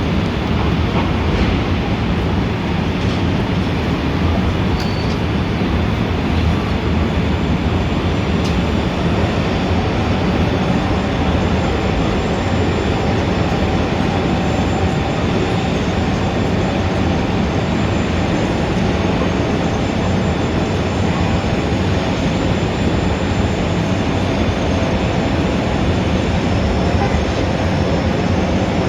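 Steady, dense rumble of city traffic that holds at an even level without any single event standing out; faint steady high tones come in partway through.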